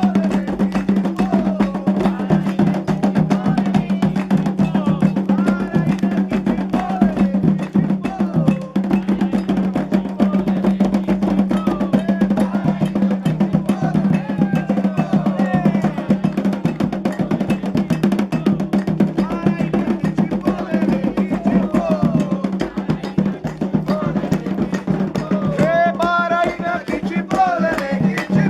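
Candomblé ceremonial music: continuous fast hand-drumming with a sharp struck percussion keeping time, and voices singing, clearer near the end.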